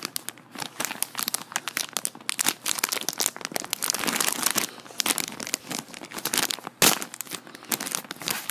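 Plastic-foil snack bag crinkling and crackling as it is handled and pulled open, with one louder sharp crackle about seven seconds in.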